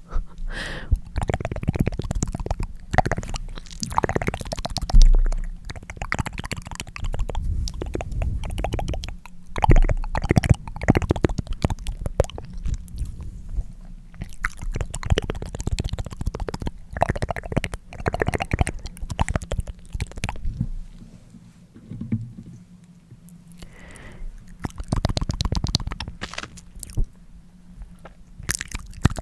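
Close-miked, wet tongue clicks: ASMR mouth sounds in quick runs of clicks broken by short pauses.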